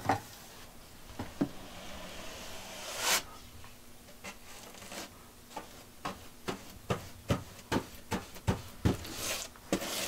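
A wide paintbrush brushing and dabbing paint onto a wall panel: soft rubbing strokes, one longer swish about three seconds in, and in the second half a run of short taps about two a second.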